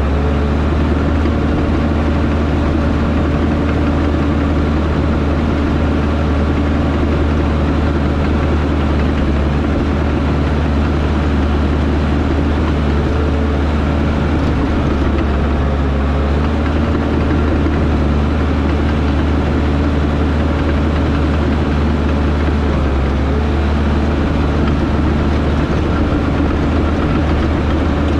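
Diesel engine of heavy earthmoving equipment running steadily and loudly at a constant speed, a deep even hum with no change in pitch.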